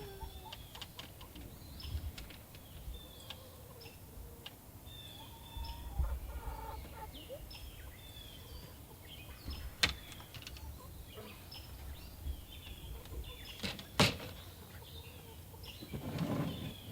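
Red sex-link hens clucking and calling among scattered high bird chirps, with two sharp knocks, the second one louder, and a stronger hen call near the end.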